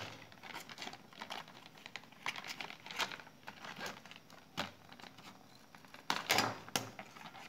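Thin plastic bucket being cut up by hand, the plastic crackling with irregular sharp snaps and crinkles, and a louder run of cracks about six seconds in.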